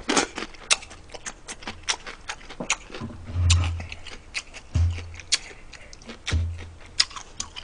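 Close-miked chewing and lip-smacking: a string of short wet mouth clicks, with a few dull low thuds.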